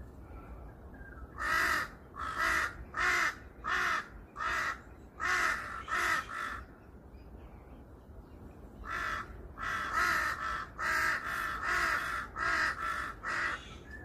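A crow cawing in two runs of repeated harsh caws, roughly two a second, with a pause of about two seconds between the runs.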